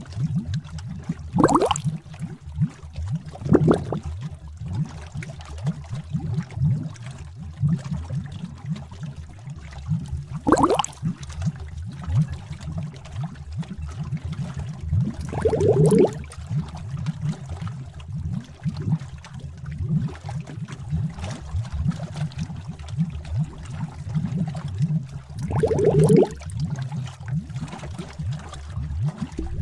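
Bubbling cauldron sound effect: thick liquid bubbling with a steady run of small low pops, and four times a bigger bubble rising and bursting with an upward gloop.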